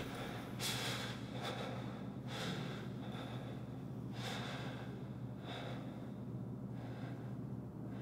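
A person's ragged breathing: a series of irregularly spaced gasping breaths that grow fainter toward the end, over a faint steady low hum.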